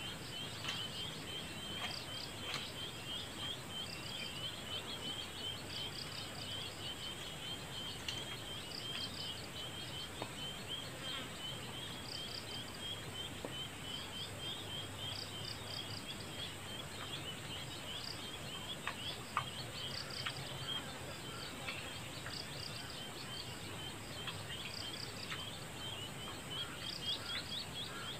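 Outdoor rural ambience: continuous small chirps of birds and insects, over a steady high insect whine. A few sharp clicks stand out, the loudest about two-thirds of the way through.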